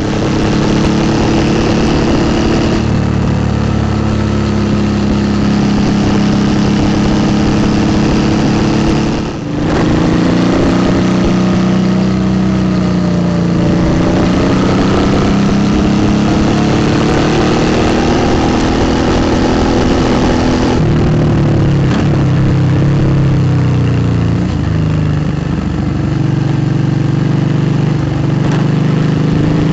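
2008 Suzuki V-Strom 650's V-twin engine, fitted with a Delkevic aftermarket exhaust, running under way, its revs rising and falling slowly. The engine note dips briefly about nine seconds in, and its pitch shifts again a little past twenty seconds.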